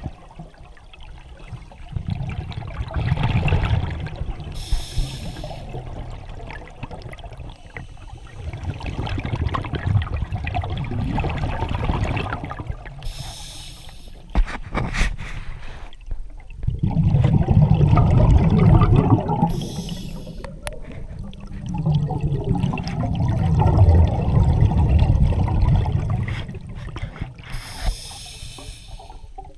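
Scuba regulator breathing heard underwater: long bubbling exhalations that swell and fade, with a short hiss of inhalation about every seven or eight seconds. A few sharp clicks come about halfway through.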